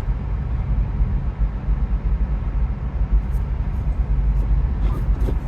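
Steady low rumble of tyre and road noise heard inside a moving Tesla's cabin on a snow-covered road, with no engine sound, since the car is electric.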